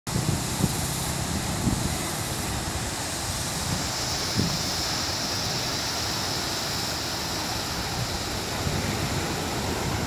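Sea waves washing in and breaking over a rocky shore, a steady rush of surf, with wind on the microphone adding a few low thumps.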